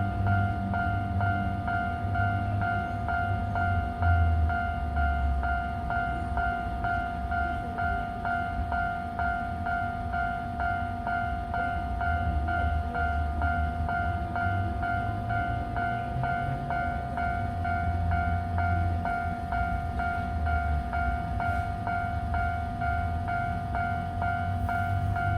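Japanese level-crossing warning bell ringing on and on in fast, even dings, over the low rumble of a train.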